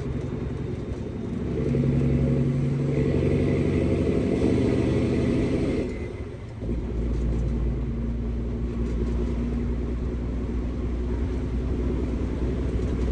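International 9900 semi-truck's diesel engine pulling louder under acceleration for a few seconds. About six seconds in it drops off briefly for a manual gear change, then runs steadily at a lower pitch in the next gear.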